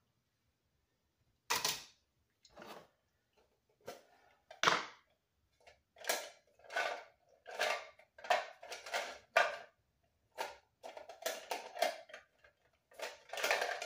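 Plastic cookie cutters clicking and clattering against one another as they are rummaged through in a container: a few sharp knocks at first, then a busy run of them over the last several seconds.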